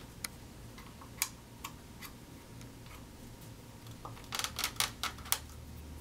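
Light clicks and taps from handling a wooden Magic Flight Launch Box and fitting a silicone whip tube onto it: a few single clicks early on, then a quick run of clicks about four to five seconds in, over a low steady hum.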